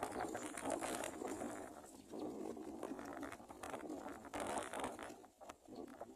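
Rustling and scraping in a brown prinia's nest, with small clicks, coming in uneven bursts with a short lull about five seconds in.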